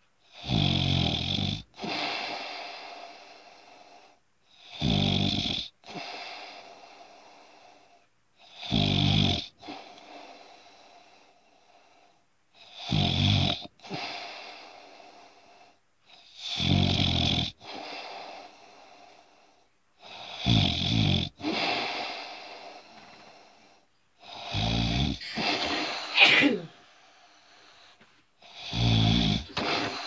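Loud, regular snoring: eight rattling snores about four seconds apart, each about a second long and trailing off into a quieter breath. Near the end one breath carries a brief, higher-pitched wheezy whistle.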